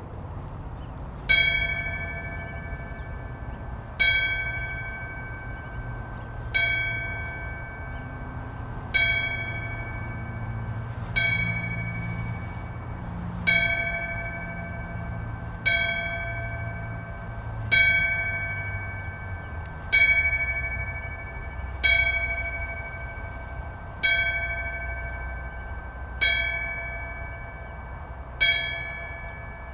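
A single bell tolled slowly, thirteen strikes of the same pitch about two seconds apart, each ringing out and fading before the next.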